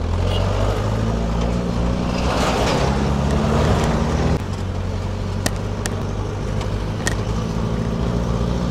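A 4x4 jeep's engine running steadily as the vehicle drives over rough sandy ground, with wind and road noise. The engine note changes abruptly partway through, and a few sharp knocks or rattles come near the end.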